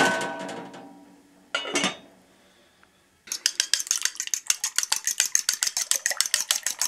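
A pan lid clanks on the cast iron pan and rings as it fades, with a second short clank about a second and a half in. From about three seconds in, a fork beats eggs in a ceramic bowl: fast, even ticks against the bowl.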